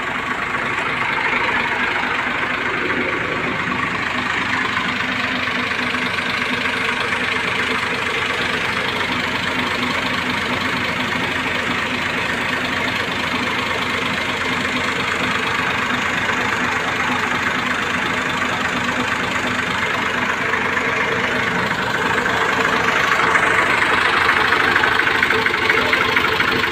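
Massey Ferguson 240 tractor's three-cylinder diesel engine idling steadily, a little louder in the last few seconds.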